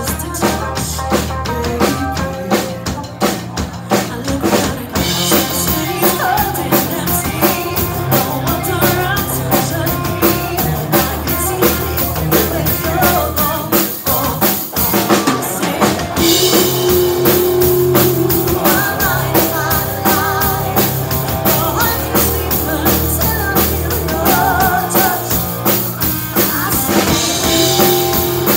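Live band playing a song: a drum kit keeps a steady beat under bass guitar and electric guitar, with female vocals over parts of it.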